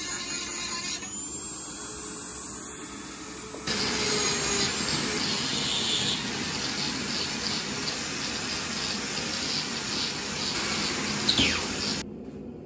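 A handheld rotary tool spins a wire wheel against steel with a high whine. A few seconds in, an angle grinder takes over, grinding a carbon-steel railway-spike bottle opener with a steady, harsh grinding noise.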